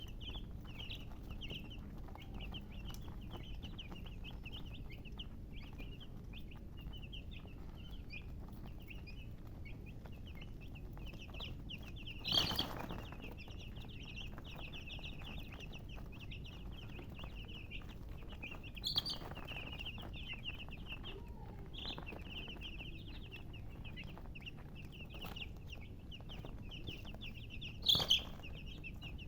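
Domestic chicks peeping continuously in rapid, high short cheeps, with three louder, sharper sounds breaking in, about twelve, nineteen and twenty-eight seconds in.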